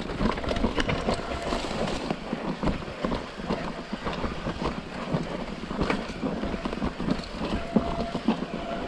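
Mountain bike descending a steep, loamy dirt trail: tyres running over loose soil and roots with a constant rattle and clatter of many small knocks from the bike, and one sharper knock near the end.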